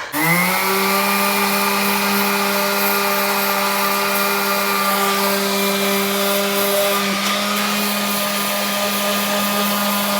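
Electric sander spinning up to speed and then running steadily at an even pitch, sanding the fibreglass bottom of a boat hull.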